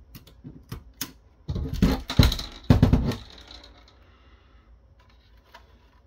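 Plastic clicks and clattering knocks from hands handling an opened mini PC's plastic case and motherboard. A few sharp clicks at first, a louder run of knocks and clatter from about one and a half to three seconds in, then faint rustling.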